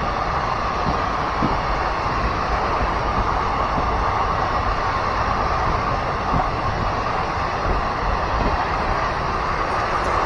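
Passenger train running at speed: a steady rumble and rattle of wheels on rail with rushing air, heard from on board, and a few faint knocks.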